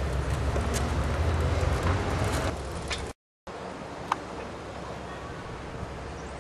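Outdoor rumble of wind on the microphone, with light clicks and rattles from two bicycles riding past. The sound cuts out for a moment about three seconds in, and the rumble is quieter after that, with one sharp click.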